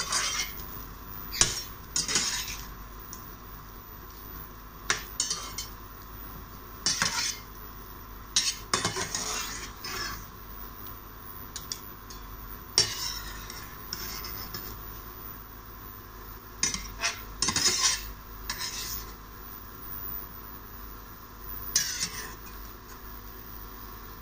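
Metal spatula and slotted steel skimmer scraping and clinking against a stainless steel frying pan as shrimp are stirred and scooped out of the oil, in irregular bursts about a dozen times. A steady sizzle of frying oil runs underneath.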